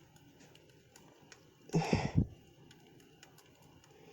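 Campfire crackling: scattered small pops and ticks over a quiet background, with a brief breathy voice sound about two seconds in.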